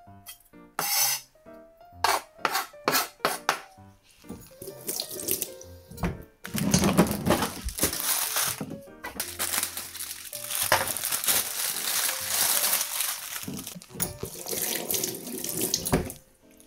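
Water running from a kitchen tap into the sink, starting about six seconds in and stopping shortly before the end, over light background music.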